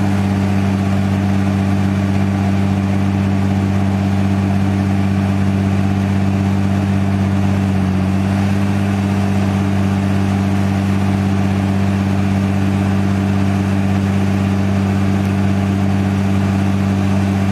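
Mercedes OM642 3.0-litre V6 diesel running steadily at a raised, held engine speed during a forced diesel particulate filter regeneration, heard close at the tailpipe as a constant, even exhaust drone.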